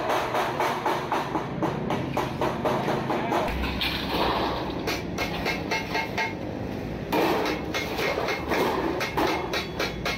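Wooden mallet striking a galvanized steel sheet in quick, steady blows, about four a second, with a short break a little before the middle where the sheet is handled, then the blows resume.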